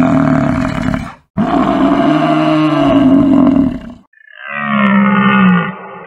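African buffalo bellowing: two long, loud, low calls, the first ending about a second in and the second running to about four seconds. A different, wavering animal call follows near the end.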